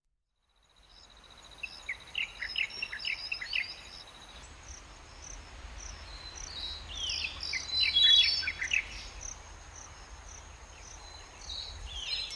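Wild birds singing in a morning chorus: two bouts of quick, falling chirps and whistles, about two seconds in and again around seven to nine seconds. Under the first bout runs a thin, high, steady trill that stops about four seconds in.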